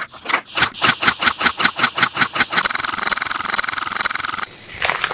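A mechanical sound: sharp clicks that speed up and run together into a steady buzzing rattle, which cuts off suddenly a little before the end.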